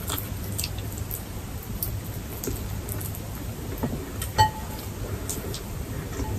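Close-up eating sounds: soft scattered clicks and crackles of chewing and of fingers picking at crispy roast chicken, with one sharper click about four and a half seconds in.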